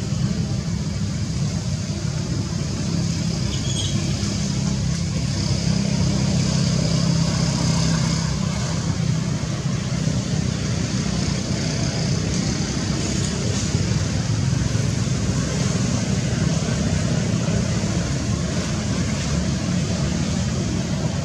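Steady low rumbling background noise that does not change, with no distinct animal calls standing out.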